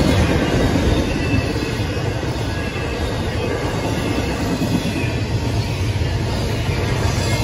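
Intermodal freight train's double-stack container cars and trailer flatcars rolling past: a steady rumble and clatter of steel wheels on the rails.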